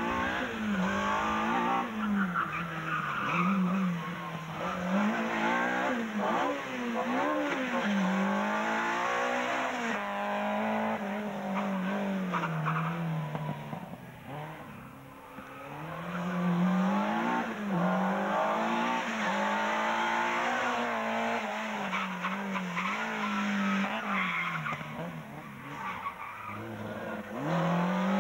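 Group H slalom race car engine revving hard and dropping again and again as the car weaves through the cones, with some tyre squeal. It fades briefly about halfway through, then comes back loud.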